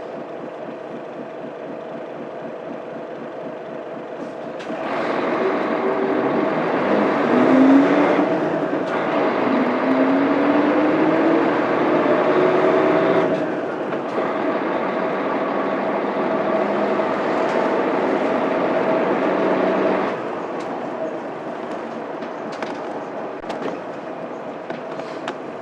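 Mitsubishi Fuso Aerostar bus's 12.9-litre 6M70 straight-six diesel engine, heard from inside the bus. It runs quietly at first, then about five seconds in comes under load with its note rising. The pitch drops back at a manual gear change and rises again, eases at about 13 seconds, and settles to a quieter run at about 20 seconds.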